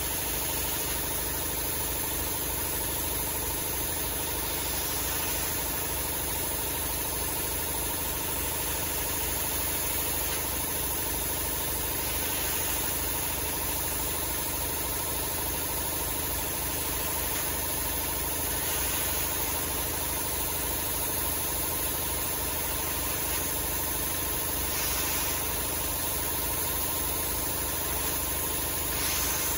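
Belt grinder running steadily while a 52100 steel knife blade is ground against its abrasive belt, with a few brief rises in the hiss. The blade's bevel is being convexed to thin the edge.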